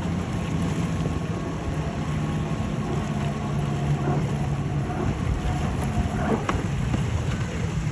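Outboard motors of a center-console fishing boat running at speed through choppy water: a steady low drone under a hiss of wind and water.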